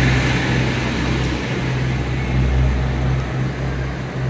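Diesel train engine running steadily at a station platform, a constant low drone with a wash of broad mechanical noise.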